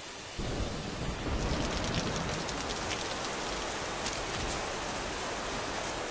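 Rain falling hard, a steady rush with many sharp drop splashes. It turns suddenly louder about half a second in.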